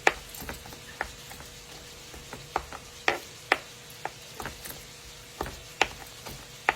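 A kitchen knife chopping sun-dried tomatoes on a cutting board in uneven, sharp knocks, about a dozen, with chicken frying faintly in a pan behind.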